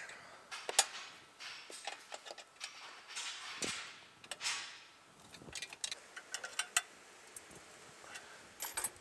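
Hand ratchet clicking in short irregular bursts and metal tools clinking as bolts are tightened by hand, with a couple of brief rustling swells partway through.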